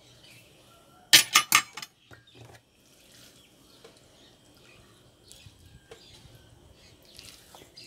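A metal spoon clattering onto a ceramic plate: a quick run of four or five sharp clinks about a second in. After that, faint taps and scrapes as sticky rice is scooped into a stainless steel bowl with a wooden spatula.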